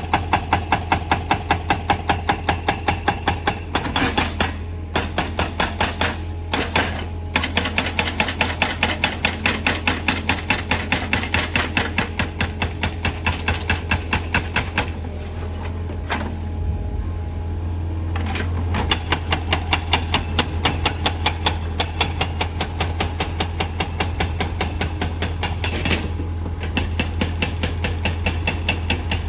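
Excavator-mounted hydraulic breaker hammering rapidly at about five blows a second, with the machine's engine running steadily underneath. The hammering pauses briefly a few times and stops for several seconds about midway before starting again.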